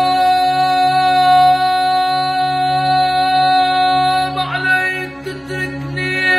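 A boy's powerful voice holds one long, steady note in Arabic tarab style, then breaks into quick melismatic ornaments about four seconds in. A violin accompanies him.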